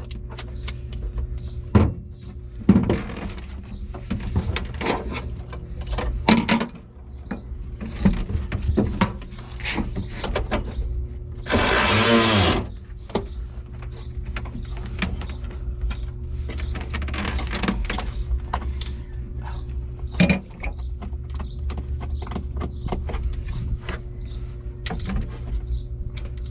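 Scattered clicks and knocks of hand tools and car parts being handled, over a steady low hum. About twelve seconds in there is one loud, noisy burst lasting about a second.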